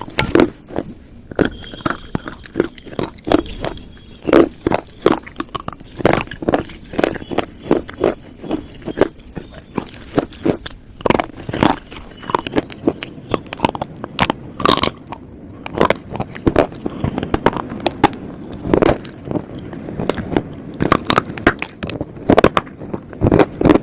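Pieces of slate being bitten and chewed: a run of sharp, irregular crunches, several a second, with softer grinding between bites.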